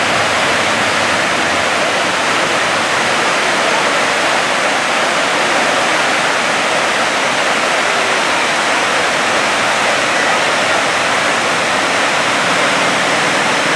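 Waterfall: river water pouring over rock ledges in a steady, unbroken rush.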